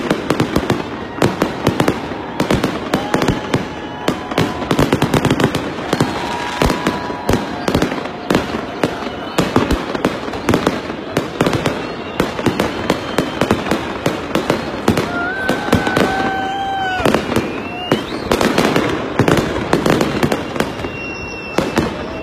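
Aerial fireworks going off in a dense, irregular barrage of crackling pops and bangs, several a second, with no let-up.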